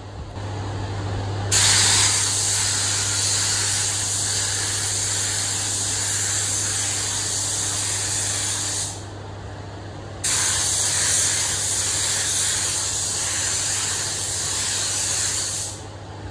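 Compressed-air gravity-feed paint spray gun spraying paint onto a car bumper: a loud steady hiss in two long passes, the first starting about a second and a half in, a short pause just past the middle, then a second pass that stops near the end. A steady low hum runs underneath.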